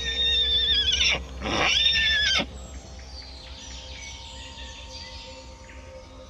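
A pony neighing: a loud, quavering whinny in two parts with a short break between them, lasting about two and a half seconds and cutting off sharply.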